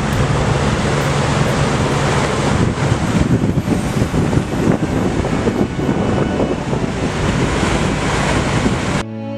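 Wind buffeting the microphone over the rush of water from a boat under way. The noise is steady and stops suddenly about nine seconds in.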